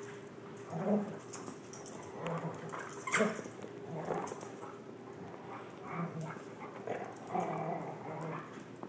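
Dogs at play growling and whining in short, repeated bouts every second or so. A sharp click comes about three seconds in.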